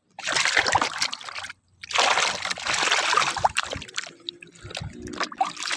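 Water splashing over muddy plastic toy guns as they are washed: two long splashing pours of about a second and a half each, then quieter trickling with a few small clicks.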